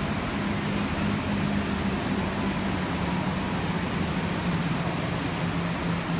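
Steady roar of the Iguazu Falls: an even, unbroken rush of falling water. A faint low hum comes and goes underneath.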